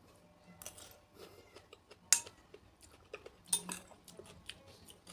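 A spoon clinking and scraping against a bowl while eating: a sharp clink about two seconds in, a cluster of clinks at about three and a half seconds, and small clicks in between.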